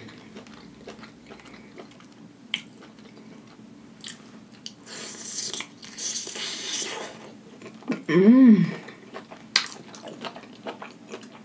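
Close-miked eating: a bite into a cheese-sauce-dipped sausage, then chewing with wet mouth clicks and smacks. About eight seconds in, a short hummed voice sound that rises and falls in pitch.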